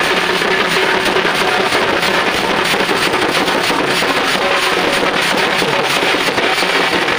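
Barrel drum beaten loud and fast in a dense, unbroken, overloaded wash of percussion.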